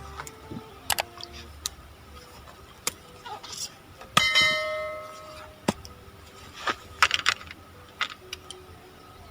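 A small metal bell rings once, loud, about four seconds in, and dies away over about a second. Scattered clicks and knocks sound before and after it.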